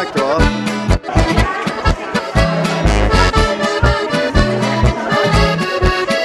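Traditional folk music led by an accordion, over a steady beat and a regularly pulsing bass line.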